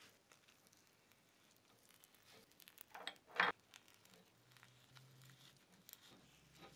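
Gloved fingers smearing soft butter into the ribbed moulds of a cast iron cornstick pan: quiet squishing and rubbing, with one louder smear about three seconds in.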